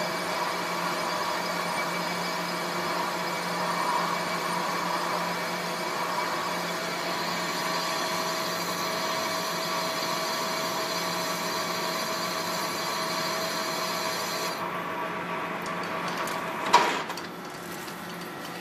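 Metal lathe running and turning a large metal disc held in its chuck, a steady machining whir with a high hiss from the cut. About three-quarters of the way through the hiss drops away as the tool comes off the work, then a single sharp clank, and the lathe runs on more quietly.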